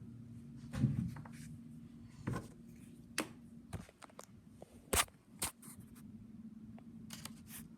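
Small plastic fidget toys being handled, giving irregular clicks and taps, the sharpest about five seconds in, over a steady low hum.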